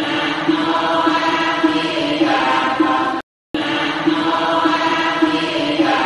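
Buddhist chanting, pitched voices intoning steadily. It breaks off into a brief silence about three seconds in, then starts again, as a repeating loop.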